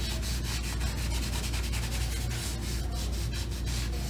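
Quick, rhythmic rubbing strokes against a painting canvas, several a second, as paint is scrubbed or wiped on the surface.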